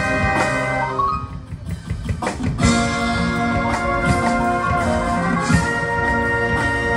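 Marching band playing: held brass chords over drums. About a second and a half in the sound thins out and quiets briefly, then the full band comes back in with a loud sustained chord and drum hits.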